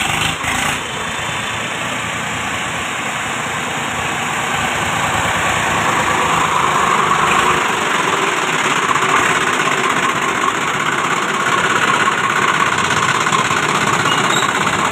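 Swaraj 744 FE tractor's three-cylinder diesel engine running steadily as the tractor is driven, getting louder as it comes close. It is being test-run after its worn gearbox carrier unit was repaired.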